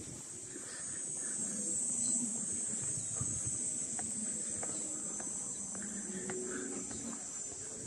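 Insects buzzing steadily at a high pitch, with faint low background noise and a few light ticks underneath.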